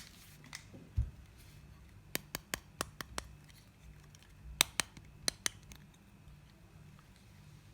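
Small plastic toy pieces and packaging being handled. A dull thump comes about a second in, then a quick run of about six sharp clicks, and four more clicks a little later.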